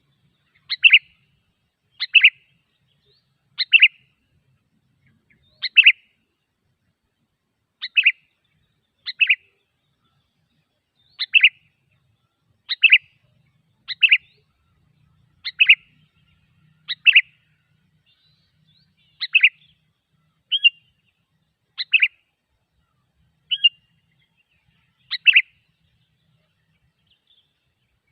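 Sooty-headed bulbul (kutilang) calls played as a lure: short, sharp chirping calls repeated at a steady pace, about one every one to two seconds.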